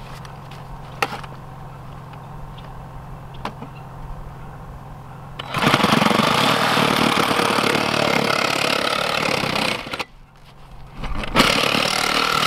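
A Sawzall reciprocating saw cutting through 4-inch schedule 40 PVC pipe. It starts about halfway in, runs for about four seconds, stops briefly, then cuts again near the end. Before it starts there are a few light knocks of the pipe and saw being handled.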